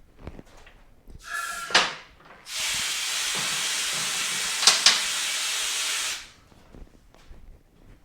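A steady, loud hiss of escaping pressurized gas lasting about three and a half seconds, with two sharp clicks near its end. It is preceded about a second and a half in by a brief whistling tone that ends in a sharp click.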